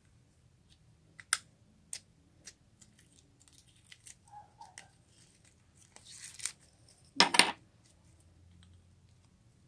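Close-up handling sounds from mixing things into slime: a few sharp clicks and snaps, a short rustle about six seconds in, then a louder brief crackling burst about seven seconds in.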